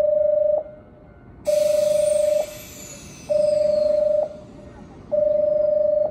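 Electronic warning tone at a railway platform: long beeps of one steady pitch, each about a second long with a short gap, four in all. A hiss comes in with the second beep and fades away.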